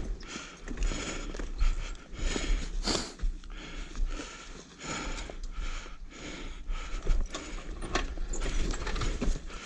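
1983 Maico 490's two-stroke single-cylinder engine running at low speed on the trail, uneven, with irregular knocks and rattles from the bike.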